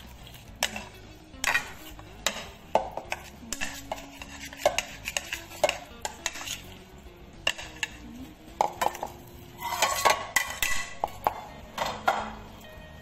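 Metal spoon stirring a thick sauce in a plastic mixing bowl: irregular scrapes and clinks against the bowl, with a busier stretch of scraping about ten seconds in.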